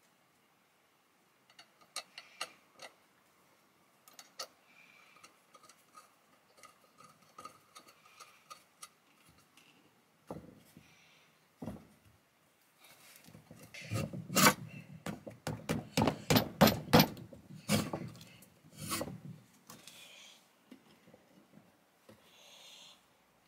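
Metal parts of a restored drill press stand clicking, scraping and rubbing against each other as it is reassembled: the column worked into the collar on the base and the head fitted onto the column. Light clicks and rubbing at first, then a dense run of louder clicks and knocks about halfway through.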